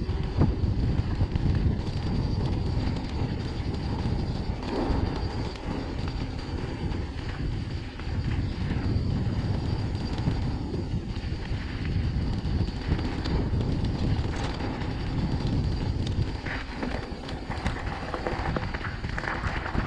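Mountain bike riding down a gravel track: steady rumble of tyres on gravel and wind on the microphone, with scattered clicks and rattles from the bike over bumps.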